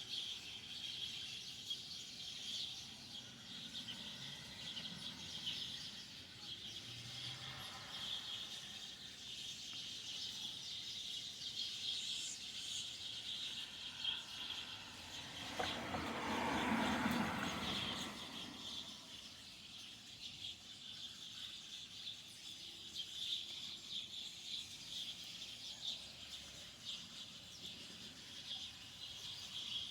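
Dense, steady chatter of a large flock of birds gathered to roost in a tree, many calls overlapping. About halfway through, a louder, lower rushing sound swells and fades over about two seconds.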